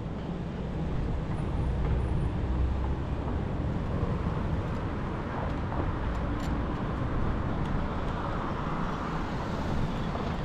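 Steady wind and rolling noise from a bicycle moving along a paved street, with a car's tyres and engine louder about midway.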